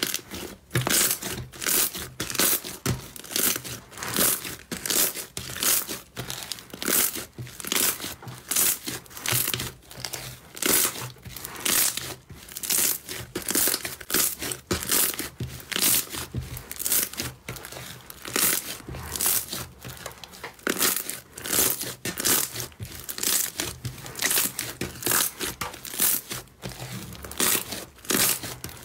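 Hands squeezing and pressing a large lump of glossy slime: a steady run of short sticky squishing sounds, about two a second.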